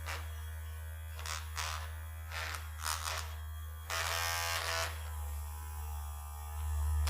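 Handheld electric vibrating massager running with a steady low buzz, turning louder and harsher in three short bursts, the longest about four seconds in.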